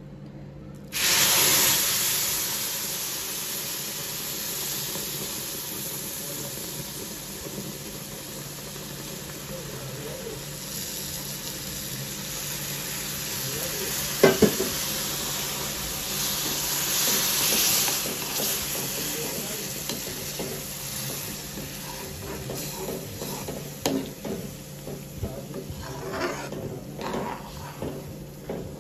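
Milk added to hot ghee and ghee-roasted crushed walnuts in a kadhai, setting off a loud sizzle about a second in that slowly dies down. There is a single knock about halfway through, and a spatula scrapes the pan as the mixture is stirred near the end.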